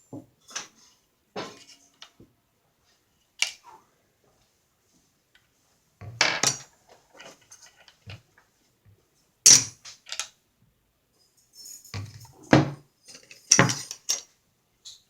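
Metal parts of a metric FN FAL lower receiver clinking and knocking as it is taken apart by hand: scattered sharp clicks and clanks with quiet gaps between, the loudest a few bunched together near the end.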